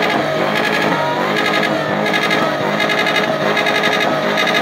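V8 car engine revving hard during a spinning display, its note rising and falling.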